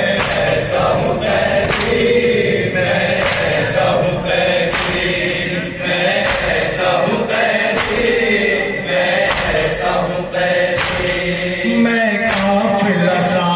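A noha, an Urdu lament, chanted by men in unison behind a lead singer on a microphone, with sharp regular slaps of hands on chests (matam) keeping the beat.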